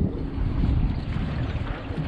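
Small boat's motor running steadily as the boat moves, with wind buffeting the microphone.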